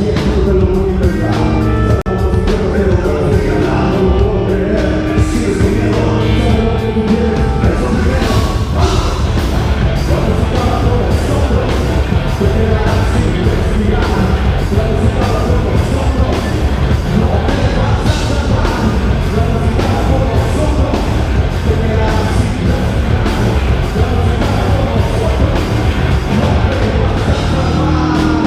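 Live heavy rock band playing loudly and steadily: pounding drums and bass under distorted guitars, with some vocals.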